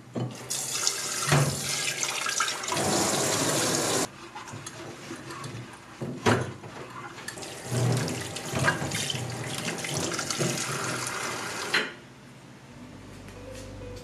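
Tap water running into a glass clip-top jar in a kitchen sink as the jar is washed, in two spells of about three and a half and four seconds with a short gap between them. A few sharp knocks of the glass are heard along the way.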